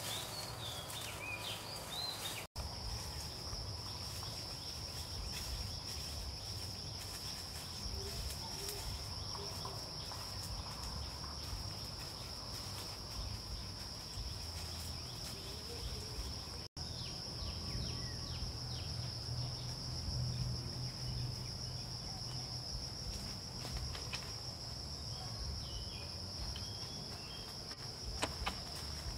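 Insects droning steadily at one high, even pitch, with a low even rumble underneath.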